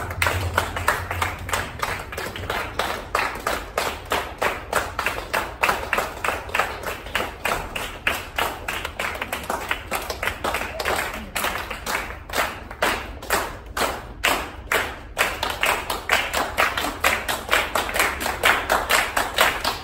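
A group of people clapping their hands as they walk, many claps overlapping. About twelve seconds in the claps line up for a few seconds into a steadier beat of roughly two to three claps a second, then loosen again.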